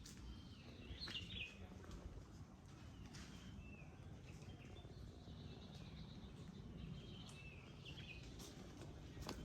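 Faint bird calls, short chirping phrases now and then, over a low steady outdoor rumble.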